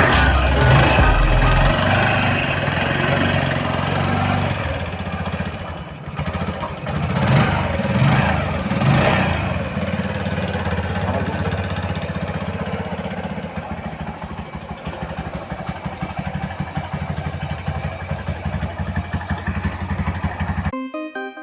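Bajaj CT 100 motorcycle's single-cylinder four-stroke engine running, revved up and down a few times about seven to nine seconds in, then idling steadily; the sound cuts off suddenly near the end.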